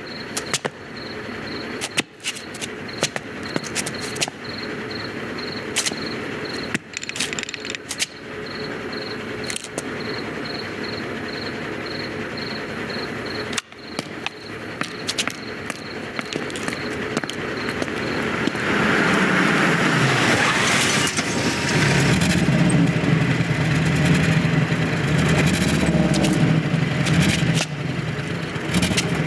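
A regular high chirping, about two a second, with scattered clicks and taps, then a vehicle engine starting up roughly two-thirds of the way in and running with a steady low hum that gets louder.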